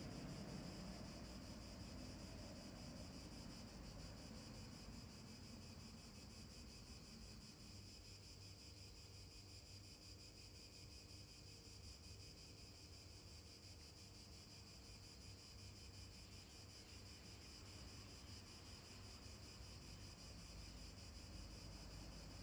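Near silence: a faint steady hiss with a thin, constant high-pitched band and a low rumble beneath.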